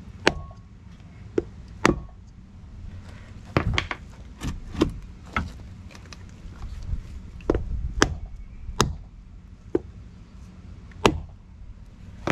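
A hammer knocking on a block of 4x4 wood held on a new wheel-hub grease seal, about a dozen sharp, irregularly spaced knocks, tapping the seal down into the hub.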